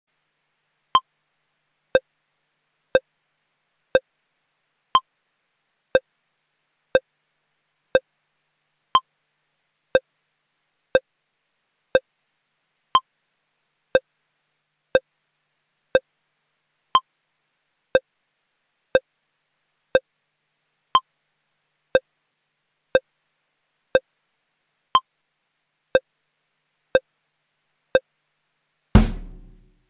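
Short electronic beeps exactly once a second, every fourth beep higher in pitch, like a metronome click. Just before the end a loud sudden thump breaks in.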